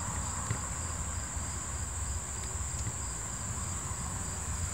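Crickets trilling in a steady high-pitched chorus, with a fainter chirp beneath it repeating about three times a second.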